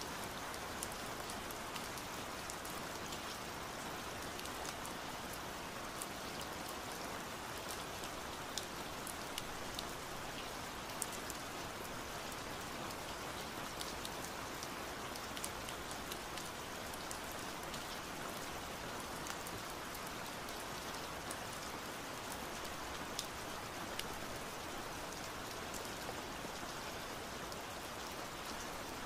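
Steady rain with many small, scattered drop ticks, an even hiss that does not change.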